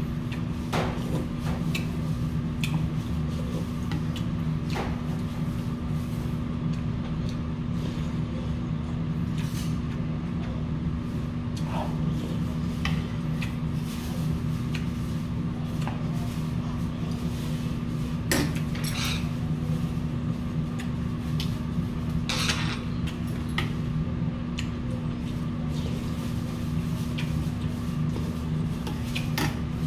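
Eating sounds: a spoon and chopsticks clicking against brass bowls every now and then, over a steady low hum.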